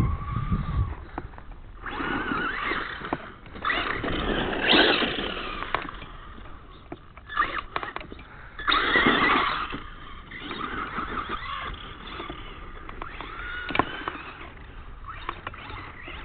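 Traxxas Stampede RC monster truck's motor whining in several bursts as it speeds up and slows over dirt, the pitch rising and falling each time, loudest about nine seconds in.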